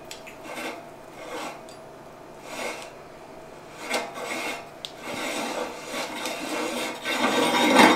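Threaded metal retaining ring on an electric meat grinder's head being worked loose by hand, a rasping metal-on-metal scrape, louder near the end.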